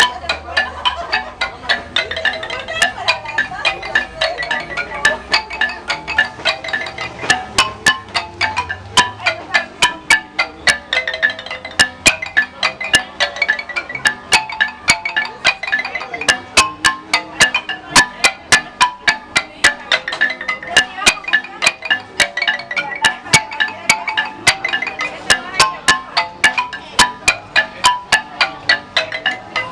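Marimba music: quick runs of struck mallet notes over a steady pulse of sharp hits.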